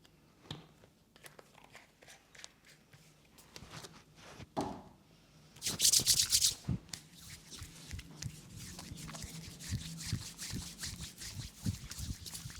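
Hands rubbing skin during a body massage. It starts with a few scattered faint taps; a loud rasping burst comes about six seconds in, followed by continuous quick rubbing strokes.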